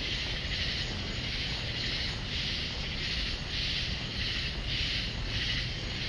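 Night insect chorus, taken for cicadas, pulsing in a steady rhythm about twice a second, over a low rumble of wind on the microphone.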